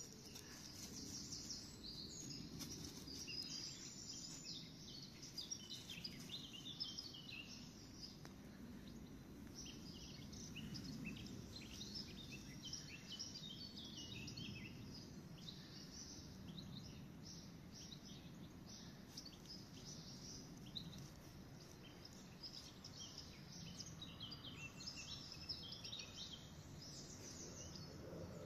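Faint chirping of small birds: many short calls in quick runs throughout, over a steady low outdoor rumble.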